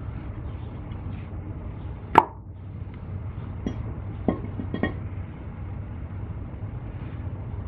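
Handling of a brake caliper bracket and its greased slide pins: one sharp click about two seconds in, then a few lighter clicks and taps, over a low steady hum.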